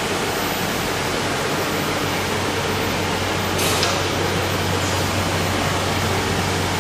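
PVC tarpaulin welding machine running, a steady noise over a constant low electrical hum, with a short hiss about three and a half seconds in.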